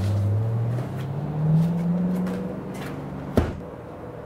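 Hot tub cover being pulled back and folded over, with a single sharp knock a little over three seconds in as it drops into place. Under it runs a low hum that rises in pitch during the first two seconds.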